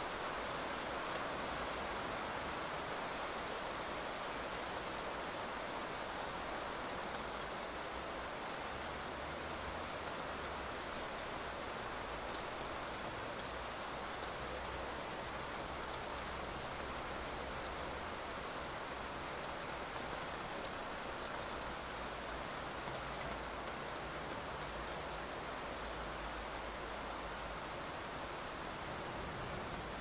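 Steady rain falling: an even hiss with many scattered sharp drop ticks, and a faint low rumble that swells and fades underneath at times.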